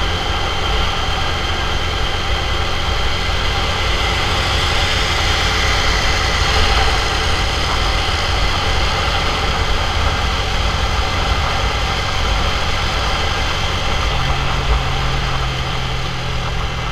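Motorcycle engine running steadily while riding along, with wind rumbling on the microphone.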